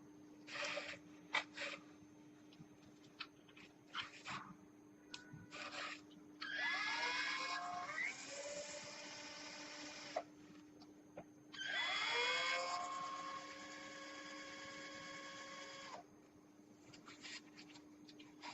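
Battery-operated cannulated orthopaedic surgical drill (ASCO 369D 102) run twice for about four seconds each: each time the motor spins up with a rising whine and then holds a steady high whine before stopping. Handling clicks come before the first run.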